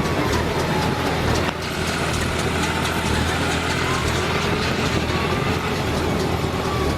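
John Deere 5410 tractor engine running steadily with a New Holland BC5060 square baler working behind it: an even machine drone with faint repeated clicks over it.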